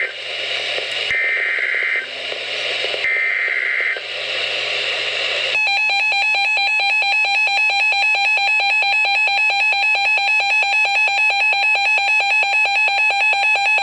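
NOAA Weather Radio SAME alert header: two short, shrill digital data bursts about two seconds apart with radio hiss between, followed about five and a half seconds in by a loud electronic alarm tone pulsing rapidly, about five beeps a second, announcing a severe thunderstorm warning.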